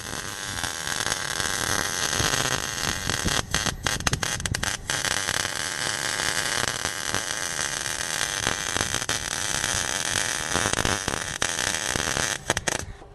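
MIG welding arc crackling steadily as a flange is welded onto an exhaust pipe. The arc breaks off for a moment several times about four seconds in and again near the end, then stops.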